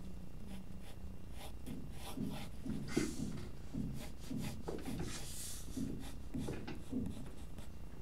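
Graphite lead-holder pencil sketching on paper: a run of short rubbing strokes, about two a second, starting about two seconds in.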